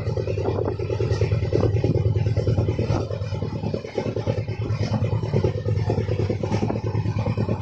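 Golden Temple Mail express train running at speed, heard from a window seat inside the coach: a steady low rumble of wheels on the rails with fast, dense rattling over it.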